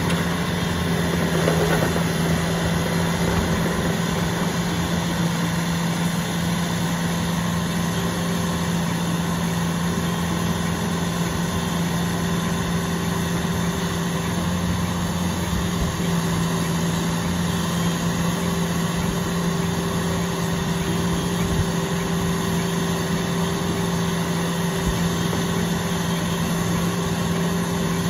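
Engine of a heavy construction machine running at a steady pitch.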